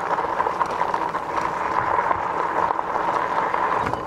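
Rad Rover 6 Plus fat-tire e-bike under way: steady running noise from the big tires on pavement and from the gears, with a steady whine at one pitch. It drops slightly just before the end.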